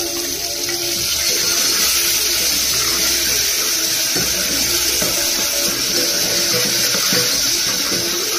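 Vegetables and liquid hissing loudly and steadily in the hot oil of a pressure cooker as they cook, the hiss starting suddenly as they go in. Faint background music underneath.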